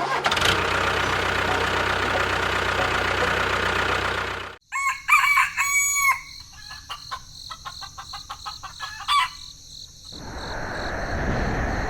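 A steady, noisy rumble that cuts off abruptly, then a rooster crowing once, followed by scattered clicks and chirps. A noisy rush swells up near the end.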